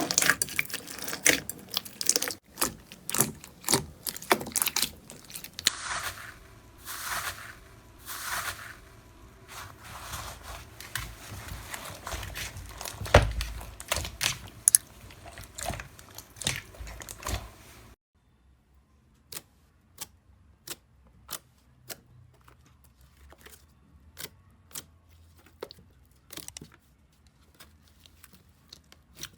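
Slime being squeezed and pulled by hand, giving dense crunchy crackling and popping. After a sudden cut it turns to a quieter run of separate sticky clicks and pops.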